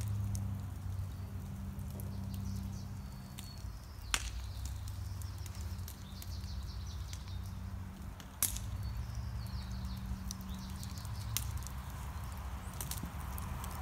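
Outdoor ambience: a steady low hum, a few sharp pops (two loud ones about four and eight seconds in), and short high bird chirps about three times.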